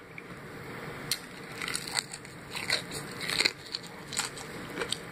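Biting and chewing crispy Popeyes fried chicken, the breading crunching and crackling in irregular short bursts.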